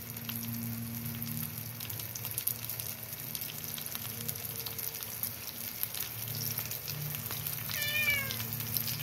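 Salmon and brussels sprouts sizzling in an electric skillet, a steady crackling hiss, with a cat meowing once near the end, a short call that falls in pitch.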